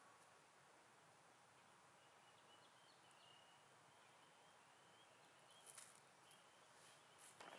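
Near silence: faint outdoor ambience with a string of faint, short high chirps, and a few soft rustles near the end.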